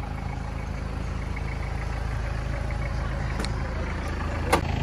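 Vehicle engine idling with a steady low rumble, with two short clicks near the end.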